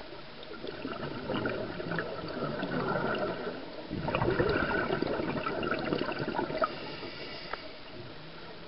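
Scuba regulator exhaust bubbles heard underwater: two crackling rushes of bubbles from the diver's exhalations, the second one louder.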